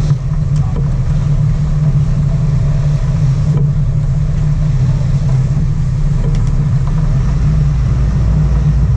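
A sport-fishing boat's engines running steadily with a low rumble, a deeper rumble coming in about seven seconds in.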